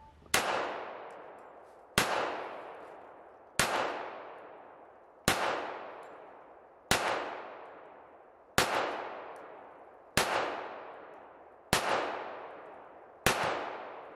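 HK45 pistol in .45 ACP fired in slow, evenly paced single shots: nine shots about a second and a half apart, each followed by a long echoing decay.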